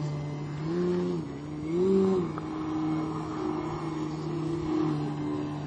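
Extreme Flight 78-inch Extra radio-controlled aerobatic plane's motor and propeller, the throttle blipped up and down while the plane hangs in a hover. The pitch rises about a second in and higher again about two seconds in, then holds steady.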